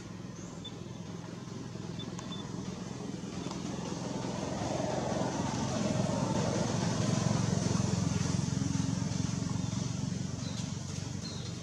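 Low engine hum of a passing motor vehicle, growing louder to a peak about seven seconds in, then fading.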